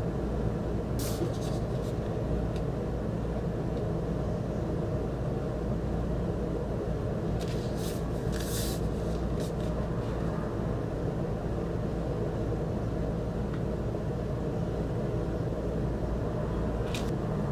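A steady low mechanical hum throughout. Over it, record sleeves are handled: short crinkling rustles about a second in, a longer run of crinkles of a clear plastic sleeve around eight to nine seconds in, and one more near the end.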